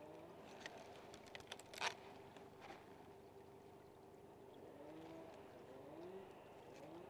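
Near silence: faint outdoor background with a few light clicks in the first two seconds and faint rising tones in the second half.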